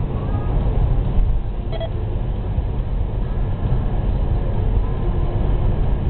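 Steady road noise inside a moving car's cabin at expressway speed: tyre and engine drone, heaviest in the low end, with a brief faint click about two seconds in.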